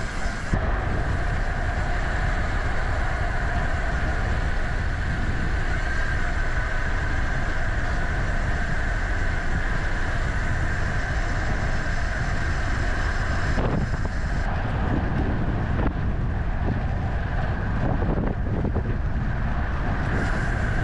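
Steady rumble and hiss of wind on the microphone with road noise, as from riding a bicycle; the high hiss drops away about 14 seconds in.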